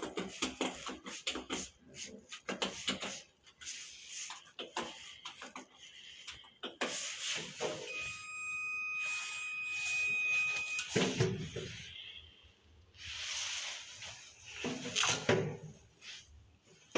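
Lift car and doors clattering and knocking, then a steady electronic beep lasting about three seconds from the Mogilev Liftmash lift, cut off by a heavy thud. A rushing noise with further knocks follows near the end.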